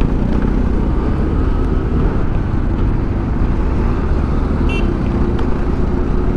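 Steady wind rush buffeting the microphone, with the low rumble of a TVS scooter riding at highway speed.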